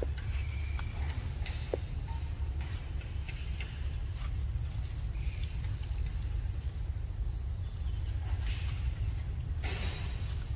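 Insects trilling steadily at two high pitches over a constant low rumble, with a brief rustle of leaves near the end as the baby monkey moves through the undergrowth.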